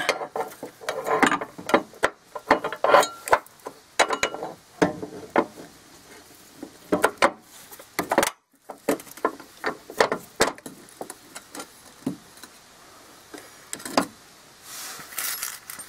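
Steel running-board mounting bracket being fitted over mounting studs under a pickup, clinking and scraping against the metal as it is worked into place: a string of irregular light knocks and clicks.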